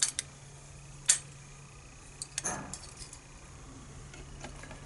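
Light metallic clicks and taps from small lock parts (pin-tumbler pins and springs) being handled, a few scattered ones and a short cluster about halfway through.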